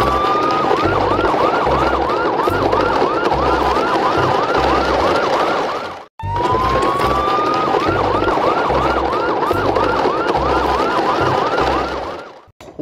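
Siren sound effect: a rising wail that breaks into a fast yelp of about three rising-falling sweeps a second, over a noisy rumble. The same few-second clip plays twice, with a brief drop-out in the middle.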